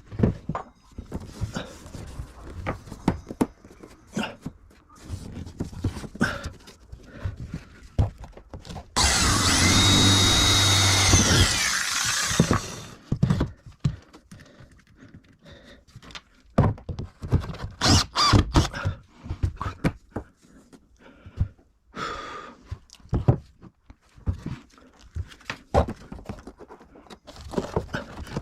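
Power drill running steadily for about three and a half seconds near the middle, with a high whine, during plywood ceiling panel work. Scattered knocks and clatter from handling panels and tools come before and after it.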